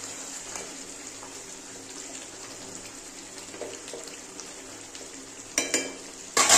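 Chicken kosha gravy sizzling and bubbling in a steel kadai as it cooks down, stirred with a metal spatula. Near the end come two loud metallic scrapes and clatters of the spatula against the pan.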